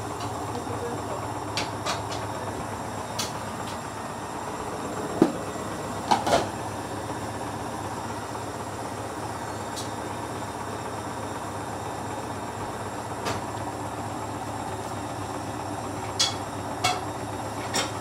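Hoover Dynamic front-loading washing machine running a suds-lock spin. Too much foam holds the drum back from a full spin, so there is a steady machine hum with a few short clunks from the drum and laundry: a pair about a third of the way in and a few more near the end.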